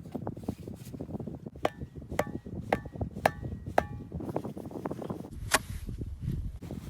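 A hand tool striking hard, five times in a steady rhythm of about two blows a second, each blow with a brief ring, then one more blow about a second and a half later.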